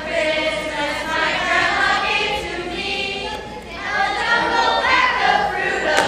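Several voices singing together, held notes mixed with some spoken words.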